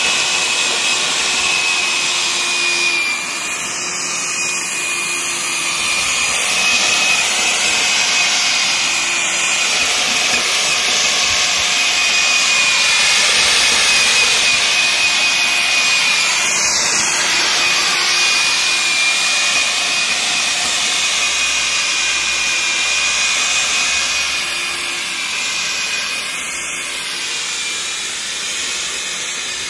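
Hecht 745 corded electric tiller running under load, its tines churning through garden soil. It makes a steady high whine over a rough churning noise that swells and eases a little as the machine bites and is pulled back.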